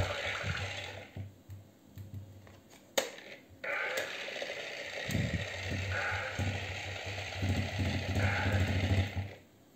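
Oball vibrating toy ball switched on: its motor buzzes and rattles the plastic shell, together with the toy's electronic sound effects. It stops about a second in, a single click comes near three seconds, then the buzz and sounds start again and cut off just before the end.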